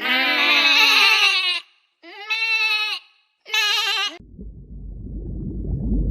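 An animal bleating three times: one long wavering call, then two shorter ones. About four seconds in, a low rumbling noise takes over.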